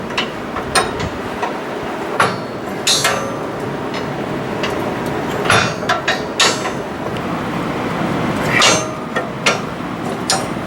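Irregular metallic clanks and knocks, some with a short ringing, as steel tools and coil-spring suspension parts are handled and struck, over a steady background hiss.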